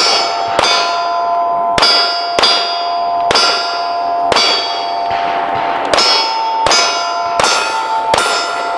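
A rapid string of pistol shots on steel targets, each with the bell-like clang of a struck steel plate ringing on after it. There are about a dozen hits, one every half second to a second.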